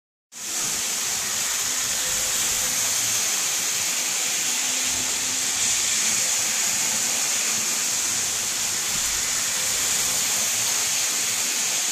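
Model trains running on a track layout: a steady, high hissing whir from their small electric motors and wheels on the rails, starting just after the beginning.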